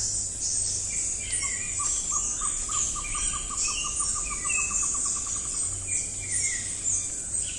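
Forest birds calling: scattered short chirps and whistles, and through the middle a long, even series of short whistled hoots, about four or five a second. A steady high hiss runs beneath.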